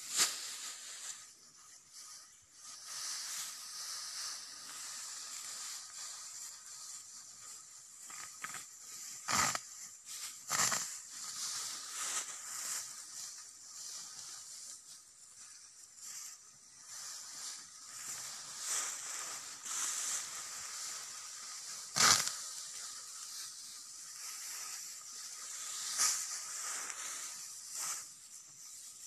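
Dry cogon grass rustling and crackling as it is cut and handled by hand, with a handful of sharp snapping cracks, the loudest about two-thirds of the way through.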